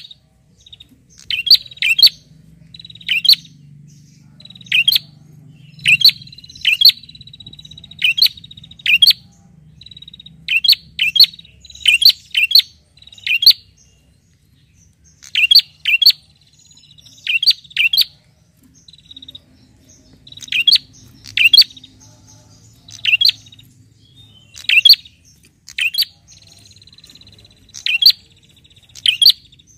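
Caged prenjak calling: loud, sharp chirps repeated about once a second, often in quick pairs or triplets, with a fainter high trill between some of them. These are challenge calls to a rival bird.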